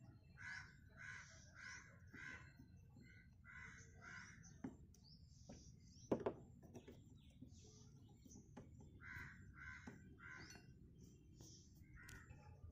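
Crows cawing in runs of several harsh calls about half a second apart. A single sharp knock about halfway through comes from a hand tool at the car battery's terminal.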